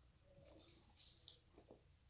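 Faint chewing of a mouthful of salad, with soft wet mouth sounds and a couple of light clicks about a second in.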